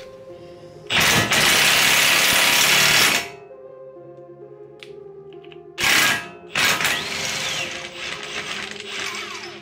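Cordless impact wrench running in bursts as it turns a stud-installer tool that pulls an extended wheel stud through the wheel hub and seats it: one burst of about two seconds, then a short burst and a longer one from about seven seconds in.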